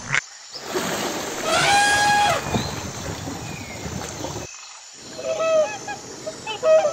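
Water splashing with one long, steady high call near the middle. Then, after a short gap, a run of short honking calls from cranes, the loudest near the end.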